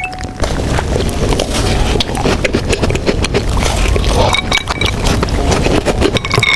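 Close-miked chewing of a caramel butter sandwich cookie: dense crunching with many small clicks over a low mouth rumble.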